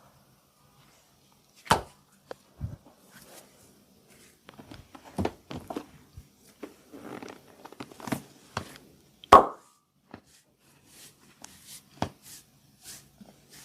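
Hands at work in a massage: about half a dozen sharp slaps and cracks at uneven intervals, the loudest about nine seconds in, with softer rubbing and rustling between them.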